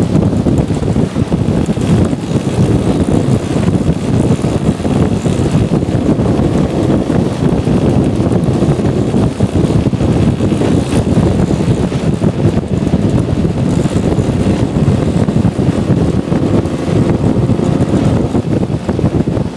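Heavy wind buffeting on a helmet-mounted microphone at road speed, with scooter engines running underneath. The rush is loud and unsteady throughout, with no clear engine pitch standing out.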